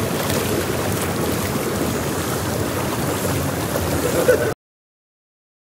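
Hot tub jets churning the water, a steady rushing and bubbling that cuts off suddenly about four and a half seconds in.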